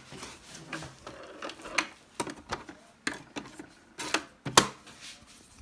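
Irregular clicks and light knocks from small objects being handled and set down, about a dozen at uneven spacing, the loudest a little past four and a half seconds in.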